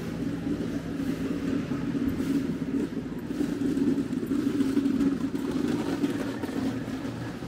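Steady low rumble of a running motor, with a constant hum underneath.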